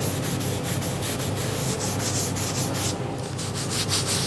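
A bristle brush scrubbing finish onto a carved wooden mushroom cap in quick back-and-forth strokes, several a second, with a short break about three seconds in. A steady low hum runs underneath.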